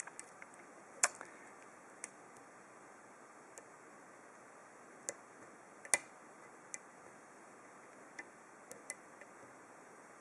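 Metal dimple pick working the pins of a dimple lock cylinder under a tension wrench: faint, irregular metallic clicks, the loudest about a second in and near six seconds.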